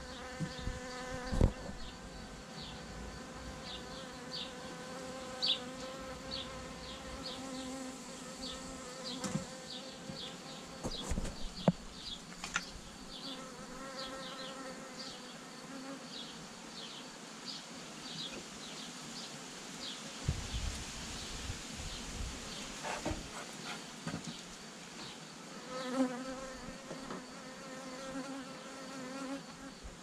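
Honeybees buzzing around an open hive, a hum that swells and fades, with a few sharp knocks as the hive is worked. A high ticking chirp repeats about twice a second underneath.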